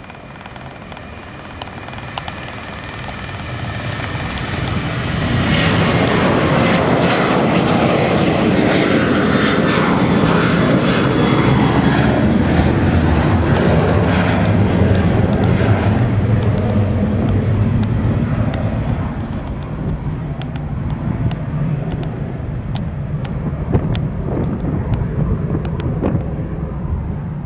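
Boeing 737-800's twin CFM56-7B turbofan engines at takeoff thrust as the jet climbs away. The rumble swells over the first few seconds, a falling sweep in pitch runs through it, and it eases off slightly toward the end.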